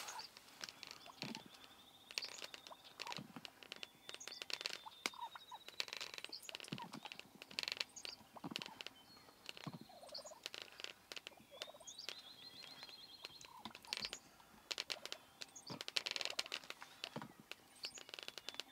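Wild turkey gobbler gobbling in bursts of rapid rattling notes, the strongest a little past the middle and again near the end, with small songbirds trilling high in the background.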